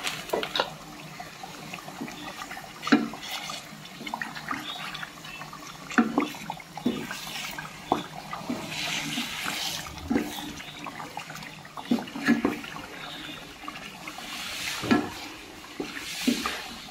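Wooden spatula stirring chicken rendang in a coated cooking pot: irregular knocks and scrapes against the pot, with the thick sauce sloshing and sizzling in between.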